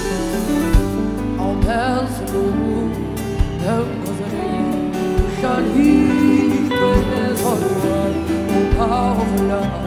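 Live band music: a woman singing over a strummed acoustic guitar, with sustained backing parts and an occasional kick drum beat.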